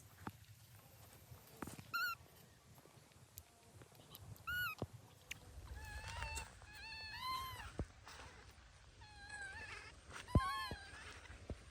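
Baby monkey giving short, high, arched squeaky cries, one at a time at first and then in quick runs of two or three. A sharp knock comes about ten seconds in.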